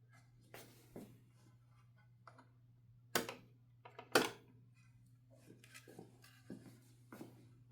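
1969 Adler J5 manual typewriter's mechanism giving irregular clicks and clacks as it is worked by hand, with two louder sharp strikes about three and four seconds in.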